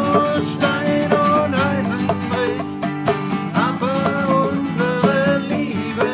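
Two acoustic guitars strummed in a steady rhythm, with a wavering melody line carried over them.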